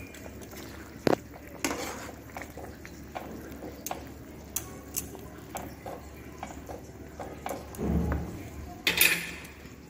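A plastic spatula stirring and turning fried bottle-gourd koftas in gravy in a non-stick pan, with scattered clicks and scrapes against the pan; the loudest knocks and scrapes come near the end.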